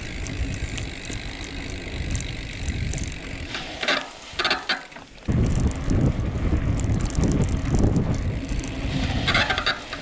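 Mountain bike ridden over a dirt track: a steady low rumble of tyres and wind on the camera's microphone. Short bursts of clicking or rattling come about four seconds in and again near the end.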